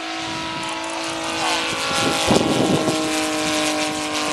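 Saito FG-60R3 60 cc three-cylinder radial gasoline engine of a large RC model warbird running at a steady speed, with a louder surge a little after two seconds in.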